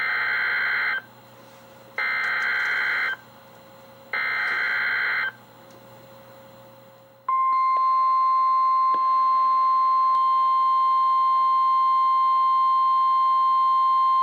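NOAA Weather Radio emergency alert coming out of a weather radio receiver: three one-second bursts of the SAME digital header data, then about seven seconds in the steady 1050 Hz warning alarm tone starts and holds. The sequence heralds a severe thunderstorm warning.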